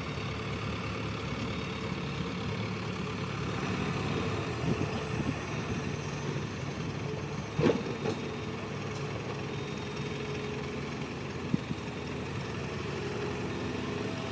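Diesel engine of heavy site machinery running steadily, with a sharp knock about eight seconds in and a smaller one a few seconds later.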